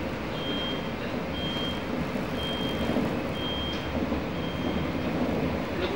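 Running noise of a Singapore MRT train heard from inside the carriage: a steady rumble, with a high electronic beep repeating about once a second, five times.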